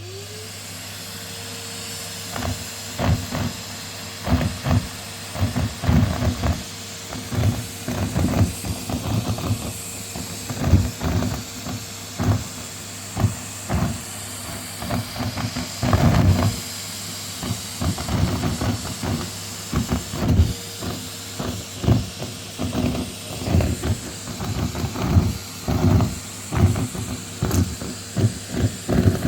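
Vacuum cleaner motor spinning up in the first second, then running at a steady whine, with frequent irregular rattling bursts as scraps are sucked up through the nozzle.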